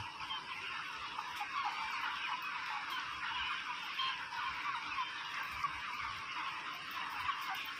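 A flock of caged white broiler chickens calling, with many small overlapping calls forming a steady, even din.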